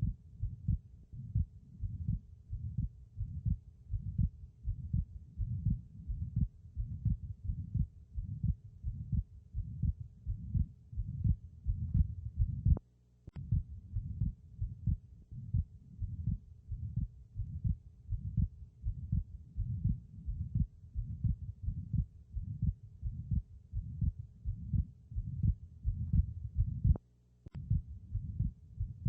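Heartbeat heard through a stethoscope with a murmur between the beats: the abnormal heart sound of an atrial septal defect. The beat repeats steadily and low-pitched, cutting out briefly twice and returning each time with a click.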